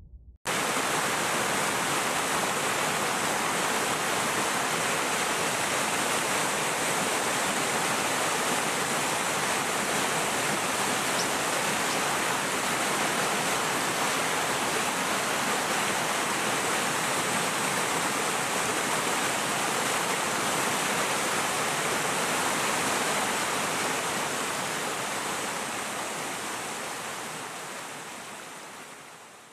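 Rushing water: a steady, even rush that cuts in suddenly just after the start and fades out over the last several seconds.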